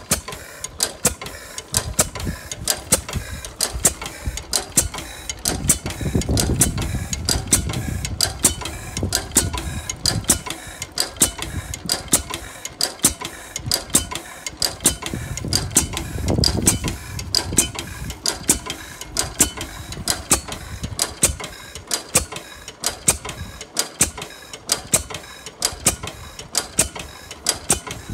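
10 hp Canadian Fairbanks Morse stationary engine running, with a rapid, even clicking and knocking. Twice, about six and sixteen seconds in, it runs heavier and lower for a few seconds.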